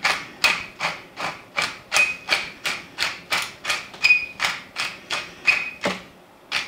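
Tall wooden pepper mill being twisted by hand, grinding pepper in a steady run of short rasping strokes, about three a second, that stops near the end.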